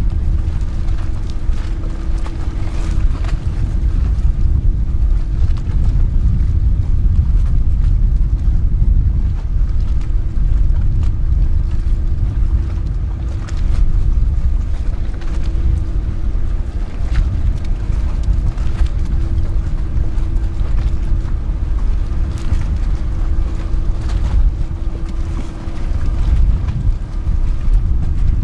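Wind rumbling on the microphone over the steady hum of a Boeing 929 jetfoil's gas turbines and waterjets, carried across the harbour as the vessel passes.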